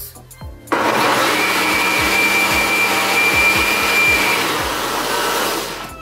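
Philco countertop blender switched on abruptly, running at full speed for about five seconds to mix in the baking powder for a cake batter, with a steady high whine over the motor noise, then winding down near the end.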